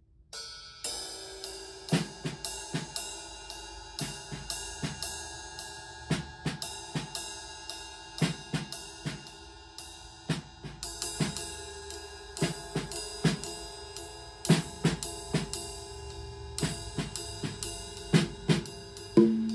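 Improvised drum-kit playing, with snare, bass drum and hi-hat strokes in a loose rhythm over ringing cymbals. It starts about half a second in.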